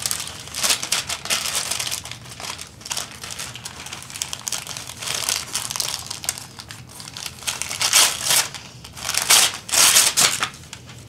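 Gift wrapping paper being torn and crumpled by hand as a present is unwrapped, in irregular rustling bursts that are loudest twice near the end.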